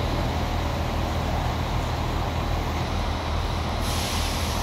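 Irish Rail InterCity Railcar diesel multiple unit pulling away from the platform, its underfloor diesel engines giving a steady low rumble. A hiss comes in about four seconds in.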